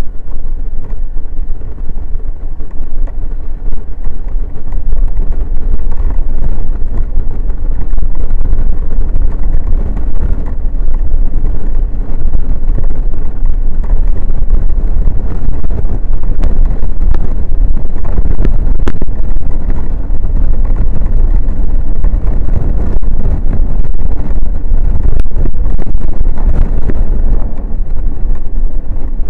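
Wind buffeting the microphone at road speed, a loud, steady low rumble, over the Honda Forza 125 scooter's single-cylinder engine running at a cruise.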